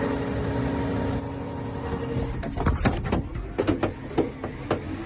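A machine's steady hum, with a few fixed tones, runs through the first half. From about halfway through it is followed by a quick run of sharp knocks or clanks, about eight of them.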